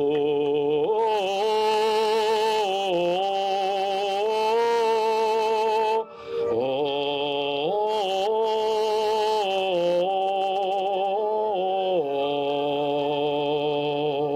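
Music: wordless singing in long held, wavering notes that step up and down, in phrases that break about six and twelve seconds in.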